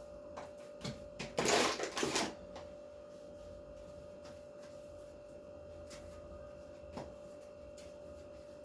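Dough and utensils being handled on a kitchen work surface: a brief loud rustling scrape about a second and a half in, and a few light knocks, over a steady faint hum.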